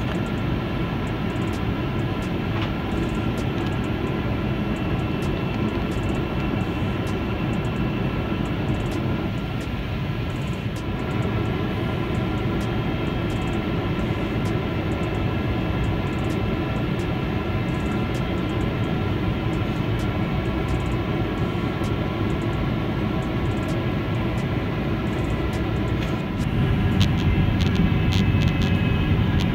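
Cabin noise of a Boeing 777-300ER on descent: a steady rush of air and the whine of its GE90 engines, several steady tones over a low rumble. Near the end the rumble grows louder and deeper.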